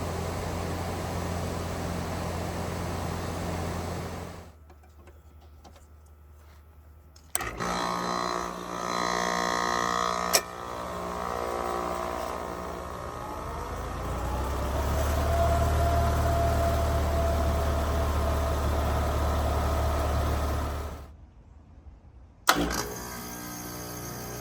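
Air conditioner outdoor units starting up in a series of short clips: loud clicks, then a whine that rises and settles to a steady tone as a low hum builds, typical of the compressor and fan motor coming up to speed.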